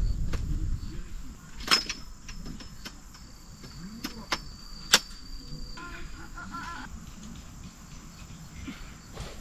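Sharp metal clicks and clacks of a folding metal camp-table frame being unfolded and locked into shape, the loudest about two, four and five seconds in, over a thin high steady trill in the background.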